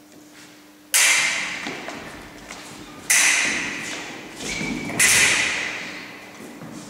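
Three sharp, loud strikes from a foil fencing exchange, about two seconds apart, each ringing out with a long echo in a large hall.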